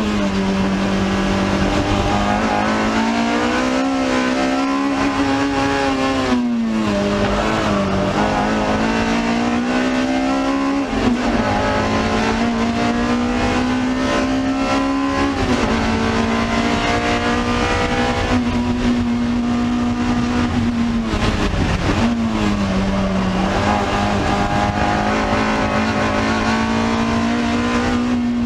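Toyota 2ZZ-GE inline-four with an aftermarket header and custom exhaust, in a mid-engined MR2 Spyder, heard from inside the cabin running hard at high revs. Its pitch climbs through the gears and dips sharply about five times at shifts and lifts.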